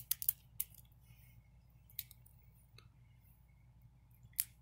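Fingers peeling the wrapper layer of an L.O.L. Surprise ball: a few short, faint crinkles and snaps of the wrap, the sharpest about four seconds in.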